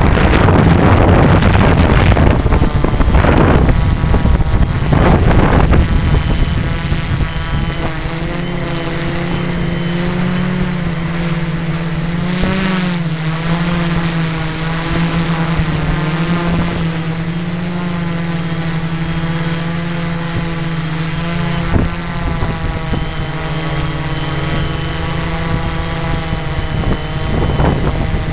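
Quadcopter's electric motors and propellers buzzing steadily as it hovers and flies, the pitch wavering slightly as the motor speeds change. Heavy wind rushing on the onboard microphone covers it for the first few seconds.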